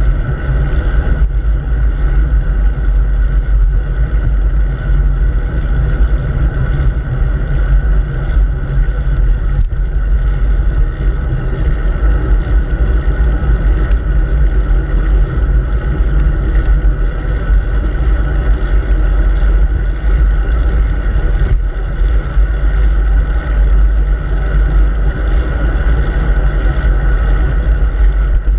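Steady rushing and rumbling of wind over a handlebar-mounted camera's microphone as the road bike rides along at speed, heaviest in the low end.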